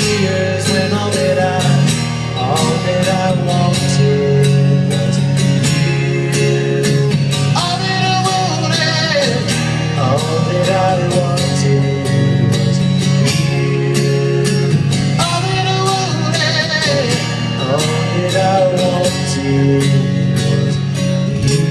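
Live solo song: acoustic guitar strummed in a steady rhythm under a male voice singing a melody without clear words, in two long phrases.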